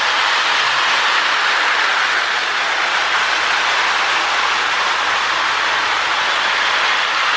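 Lionel 1666 O gauge toy steam locomotive running on three-rail track: a steady, even whir of the running train, with no change in speed.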